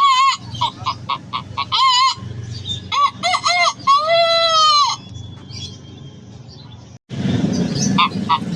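A man imitating a chicken with his voice. He makes rapid clucks and a few drawn-out wavering squawks, then one long rooster-like crow about four seconds in that lasts about a second. After a short lull the clucking resumes near the end.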